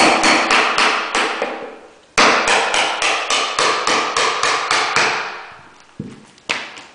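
Hammer striking in quick runs of blows, about five a second, while a baseboard is worked loose: a short run, a pause, a longer run, then two single blows near the end.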